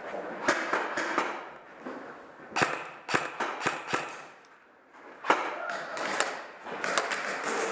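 Irregular sharp cracks and clicks of airsoft guns firing and BBs striking hard surfaces, over rustling movement, with a short lull about four and a half seconds in.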